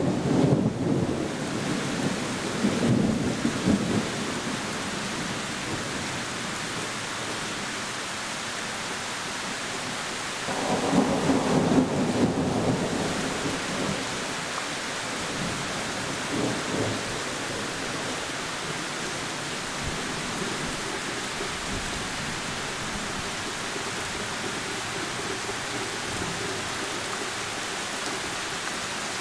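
Heavy rain falling steadily, with rolling thunder. One rumble fades out over the first few seconds, a louder one comes about ten seconds in and lasts around three seconds, and a brief fainter one follows a few seconds later.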